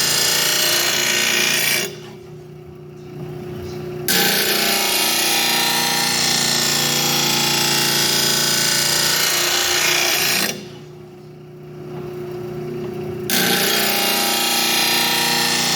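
Oregon blade sharpener's grinding wheel grinding the cutting edge of a commercial mower blade: a loud, harsh grinding over the steady hum of the motor. Twice the grinding stops for two or three seconds as the blade comes off the wheel, leaving only the motor running.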